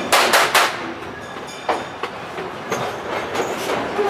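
Train's open passenger car rolling along the track, its wheels clacking over the rails in a cluster of sharp clacks at the start and another about a second and a half later, over a steady rolling noise.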